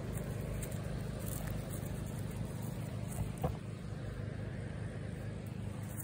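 A steady low mechanical hum with a few faint clicks.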